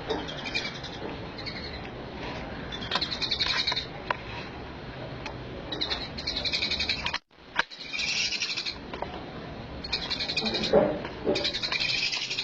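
Raspy animal calls from a cat and ducks squaring off, in about six short rasping bursts, with a brief cut to silence a little after seven seconds in.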